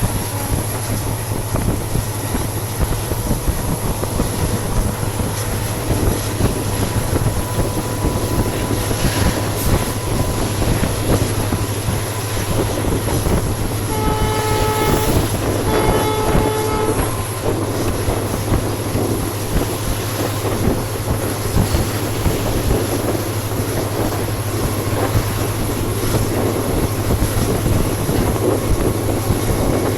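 Passenger train running along the track behind a WDP4D diesel locomotive, with steady wheel and coach noise and a low hum. About halfway through, the locomotive's horn sounds twice in quick succession, each blast about a second long.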